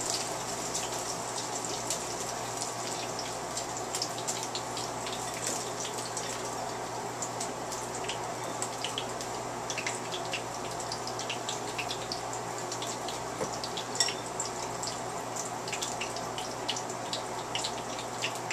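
Bacon-wrapped chicken deep-frying in a skillet of hot grease: a steady sizzle full of small crackling pops, with one sharper pop about fourteen seconds in.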